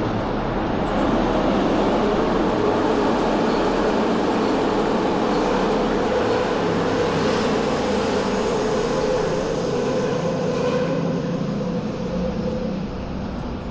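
Berlin U-Bahn train passing, a steady rumble with a held whine that swells about a second in and eases off near the end.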